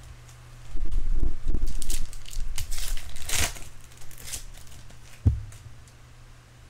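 Trading card pack wrapper crinkling and tearing as a pack is opened and handled, for about four seconds, followed by a single short thump about five seconds in.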